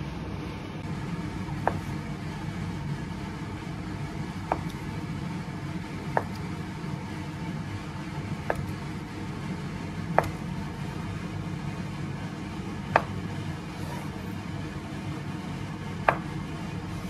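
Kitchen knife slicing through a block of halloumi on a wooden cutting board, each slice ending in a short sharp tap of the blade on the board: about seven taps, a couple of seconds apart, over a steady low hum.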